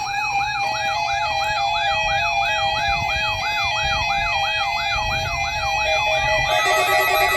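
Electronic siren-like wail, its pitch sweeping up and down about three times a second over a steady tone and a stepping synthesized melody. About six and a half seconds in, the wail stops and music takes over.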